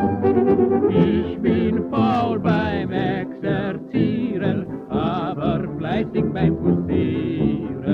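A man singing a German military foxtrot with vibrato over a dance orchestra, from an old shellac record with a dull, muffled top end.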